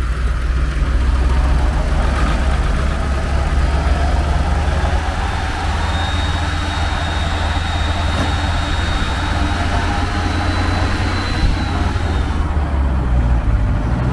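Engines of a Belarus MTZ tractor and a stuck GAZ truck idling, a steady deep hum with no revving. A faint high whine sounds for about five seconds in the middle.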